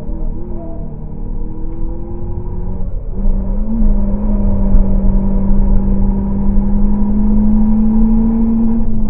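A car's engine, heard from inside the cabin, pulling hard through the gears. The engine note climbs slowly, drops with an upshift about three seconds in, then comes back louder and climbs steadily again until another shift at the very end.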